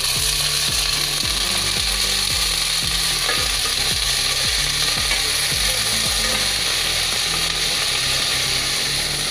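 Long beans sizzling loudly and steadily in hot oil in a saucepan. The sizzle starts suddenly as the beans go into the pan.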